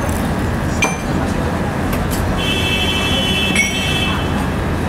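Steady street and traffic noise, with a few light clinks and a brief high ringing tone near the middle.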